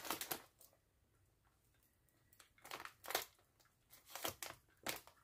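Plastic snack bag crinkling as its top edge is pinched and worked through a handheld heat sealer. The crinkling comes in short rustles: one at the start, then two more after a quiet second or two.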